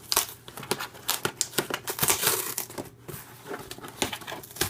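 Packaging being handled and crinkled by hand: a run of sharp crackles and rustles, densest about two seconds in.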